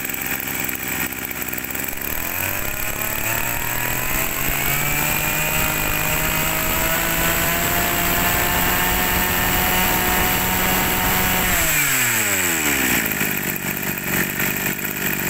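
Ryobi brush cutter's small two-stroke engine, a Mitsubishi TL type, running on a test. It idles, then is throttled up over about three seconds to a high, steady rev held for about seven seconds, and drops quickly back to idle near the end.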